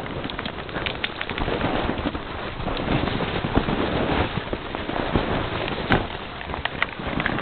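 Footsteps crunching through snow with rustling and handling noise on the microphone: a dense, continuous run of small crackles and knocks.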